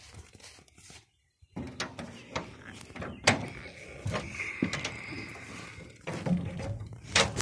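Metal cab door of an old MAN fire truck being handled and opened: scattered clicks and knocks, with one loud clack about three seconds in and another near the end.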